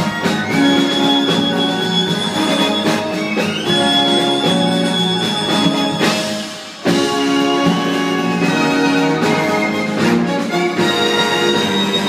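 Orchestral theatre music, with strings carrying a melody in held notes. It drops away briefly about six and a half seconds in, then comes back with a sudden loud entry.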